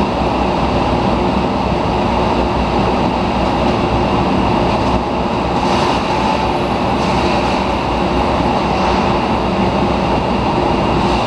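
Rotary furnace running: a loud, steady mechanical rumble and rush with a few steady hum tones over it.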